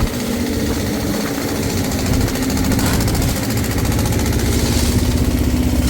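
A small engine running steadily with a rapid, even knocking beat.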